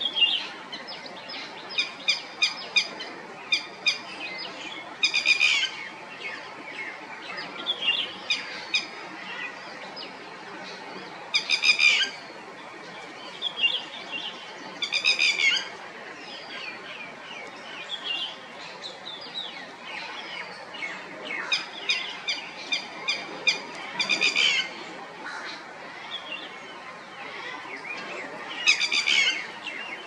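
Red-wattled lapwing calling: loud, sharp, piercing notes, some spaced about two a second and some in quick runs, coming every few seconds, with fainter bird chirps in between.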